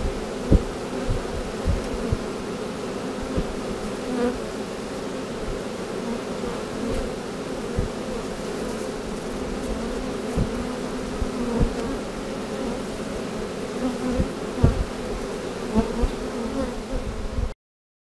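A swarm of honey bees buzzing in a steady, close hum as the mass of bees crawls over a sheet, with scattered low thumps against the microphone. The sound cuts off abruptly near the end.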